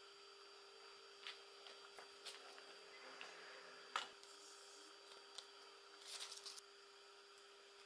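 Faint scraping and a few light clicks of a table knife spreading cream cheese onto a bagel half, over a low steady hum, with a brief rustle about six seconds in.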